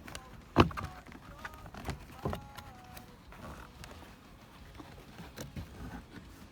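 Knocks and clicks of hands working on car interior trim and seat-belt parts: one sharp knock about half a second in, then lighter knocks and faint squeaks over the next couple of seconds.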